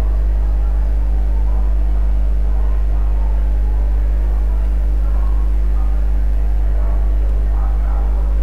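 Steady low electrical hum at an even level, with a ladder of faint overtones above it.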